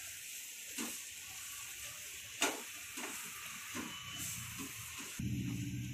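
Onion-tomato masala with gram flour sizzling in a non-stick kadai on low heat while a silicone spatula stirs it, with a few short scrapes against the pan: the gram flour being roasted. A low steady hum comes in near the end.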